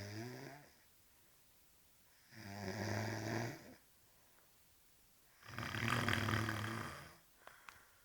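A man snoring heavily after a night of drinking: loud, low, buzzing snores on each in-breath, one ending just at the start and two more about three seconds apart, with quiet breathing gaps between. A couple of faint clicks follow the last snore.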